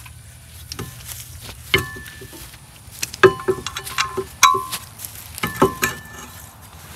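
Metal tools and parts clinking and clanking at a car wheel: a few scattered clinks, then a run of sharp, ringing metal strikes between about three and six seconds in.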